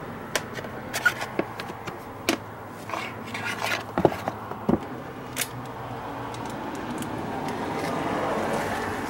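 Scattered clicks, knocks and scrapes of hands handling metal parts and tools around a car's front wheel hub and brake caliper, with a sleeve brushing close to the microphone; the loudest knock comes about four seconds in. A steady low noise swells in the last few seconds.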